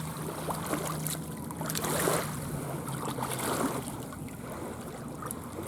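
Motorboat engine droning steadily at a distance, fading about halfway through, with gusts of wind on the microphone.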